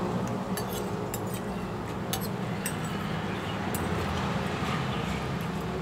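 Cutlery clinking and tapping against a plate while eating, a dozen or so light clicks at irregular intervals over a steady low hum.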